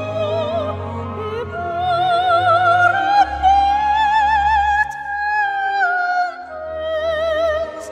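Operatic soprano singing with a wide vibrato over low instrumental accompaniment; the voice climbs to a long high note held through the middle, then comes back down.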